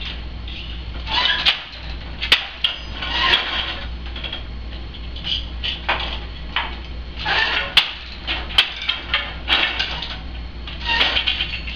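Hand weaving on a wooden countermarch floor loom: shuttles swishing across the warp and sharp wooden clacks from the beater and shuttles, repeated several times at an uneven pace, over a steady low hum.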